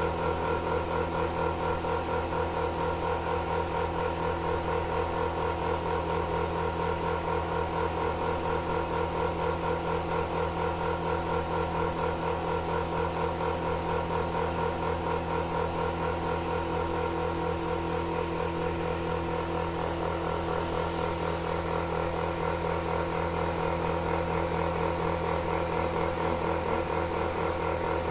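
Milking machine running: a steady motor hum with a regular, fast pulsing that does not change.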